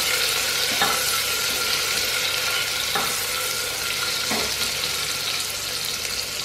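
Sliced onions sizzling steadily in hot oil in a pressure cooker as they fry towards golden. A silicone spatula scrapes through them three times.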